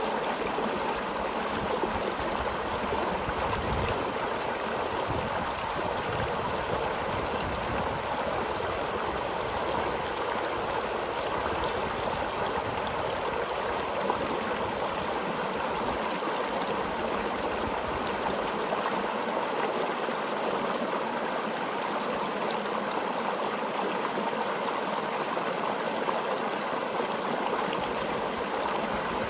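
Creek water flowing steadily over rocks, an even rushing with light gurgling.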